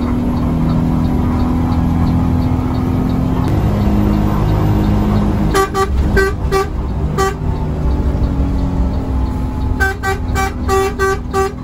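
Bus engine drone heard from inside the cabin, with the bus horn giving a run of short toots of one pitch about six seconds in and another quick run near the end.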